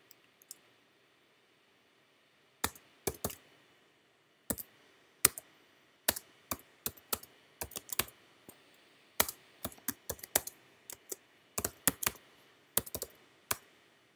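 Typing on a computer keyboard: irregular keystroke clicks, some single and some in quick runs. They pause for about two seconds near the start and then go on steadily.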